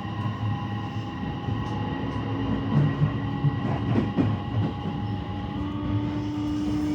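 JR West 321 series electric train running, with its Toshiba IGBT VVVF inverter and traction motors giving several steady high-pitched tones over the rumble of the wheels. These tones are the unexplained abnormal whine this car is known for. A few clattering knocks from the rails come about midway, and a lower motor tone rises slightly and grows louder near the end.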